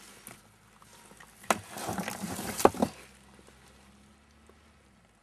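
A few sharp knocks close together, with a rustle between them, from about one and a half to three seconds in.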